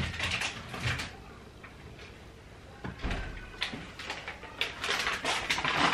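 Small refrigerator being rummaged in and shut: knocks as items are moved inside, the door closing with a low thump about three seconds in, then a run of light clicks and handling noises.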